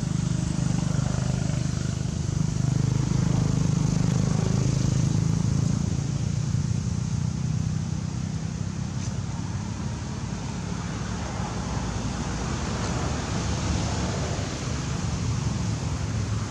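A low, steady engine drone, strongest over the first several seconds and easing off after about six seconds.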